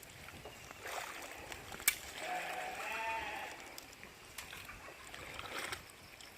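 A farm animal gives one short pitched cry that arches up and falls, about two seconds in. Just before it comes a single sharp click.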